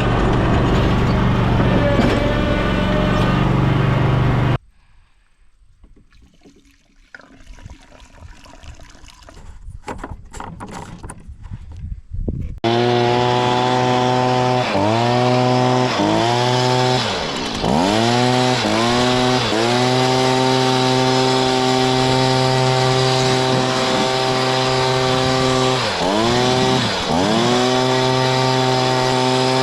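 A loud engine running steadily cuts off about four and a half seconds in, leaving faint clicks and rustling. About twelve seconds in, a Stihl handheld two-stroke power tool starts running at high throttle, its pitch dropping and climbing back several times as the throttle is let off and squeezed again.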